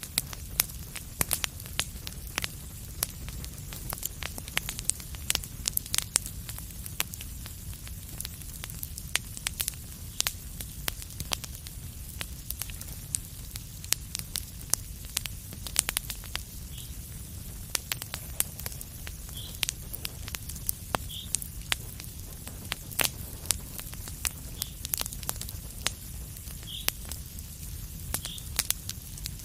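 Fireplace fire crackling, with frequent sharp pops over a steady low rumble. A few brief high-pitched squeaks come through in the second half.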